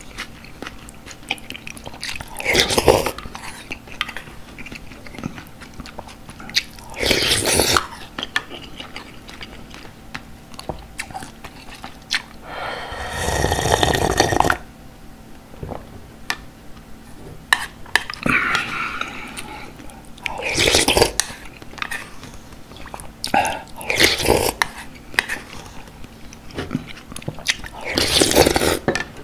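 Close-miked slurping of galbitang broth in a string of separate sips, several seconds apart, from a wooden spoon. Near the middle comes one longer draw of about two seconds straight from the tipped-up earthenware bowl. Chewing and small mouth clicks fill the gaps between sips.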